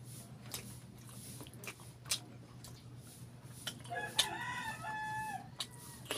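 A rooster crowing once in the background, starting about four seconds in and lasting a second and a half, over soft mouth clicks and smacks from eating saucy chicken by hand.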